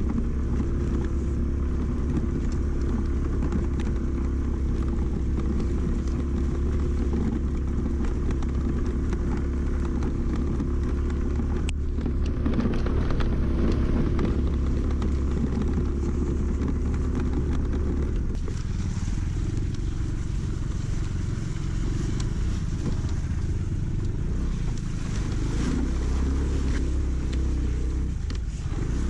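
Aprilia Storm scooter's engine running steadily under way on a rough dirt road, a constant low hum whose note changes about two-thirds of the way through.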